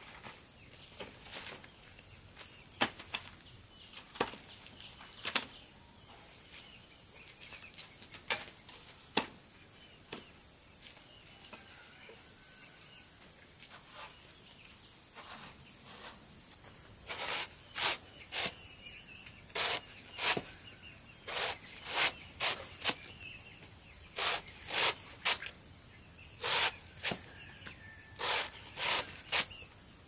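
A steady high-pitched insect chorus, with sharp knocks that come now and then at first and then repeat every half second to a second through the second half.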